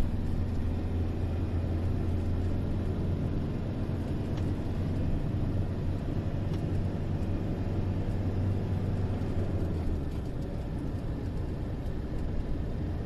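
Steady low rumble of a car driving, heard from inside the cabin: engine and road noise with a deep hum that drops off about ten seconds in.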